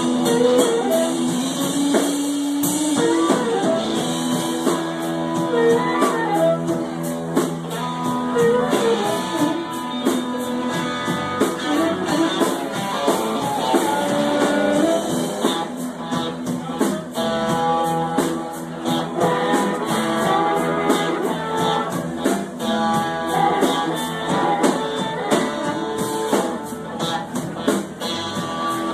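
Blues band music with guitar to the fore over a steady drum-kit beat.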